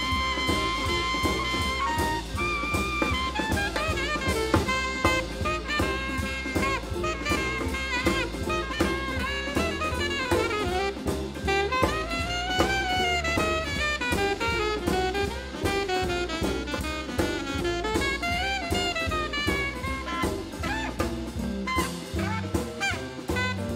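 Live jazz band swinging: a horn, most likely alto saxophone, solos in fast runs over drum kit and rhythm section.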